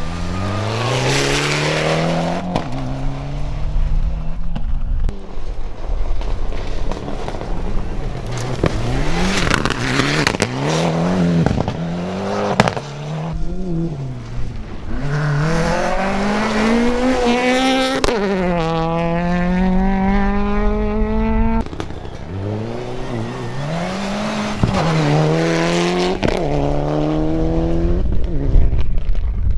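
Rally cars on a gravel stage accelerating hard through the gears, engine pitch climbing and dropping with each shift. In the middle, one long climb to high revs is held for a few seconds, then the sound cuts off abruptly and another car is heard running through its gears.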